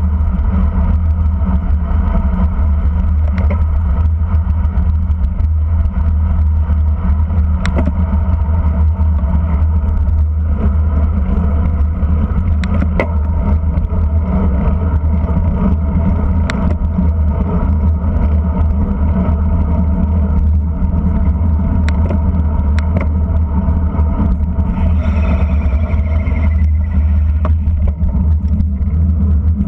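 Wind buffeting and road rumble on a camera mounted on a racing bicycle rolling at speed, a loud steady low rumble. A few sharp clicks come through, and a brief falling squeal is heard near the end.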